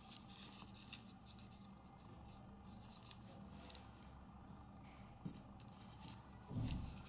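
A square sheet of origami paper being folded by hand: faint rustling and crinkling with small crisp ticks as the creases are pressed flat. A dull low thump comes near the end.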